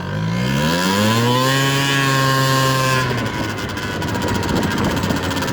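70cc big-bore two-stroke scooter engine revving up under throttle, climbing in pitch and holding high revs. About three seconds in the throttle closes and it drops back to a low run.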